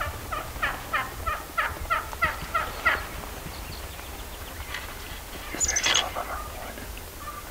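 Wild turkeys calling: a run of about nine yelps, roughly three a second, then after a pause of about two seconds a short, louder gobble.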